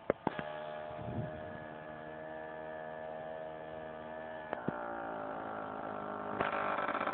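A vehicle engine running at a steady speed, its pitch shifting about four and a half seconds in and growing louder near the end. A couple of sharp knocks come right at the start.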